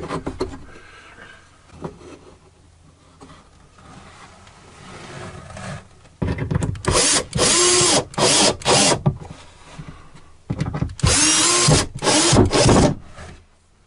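Bosch cordless drill-driver driving screws into a wooden block, run in short bursts in two spells, about six seconds in and again near the end, its motor pitch rising and falling with the trigger. Faint handling sounds come before the first spell.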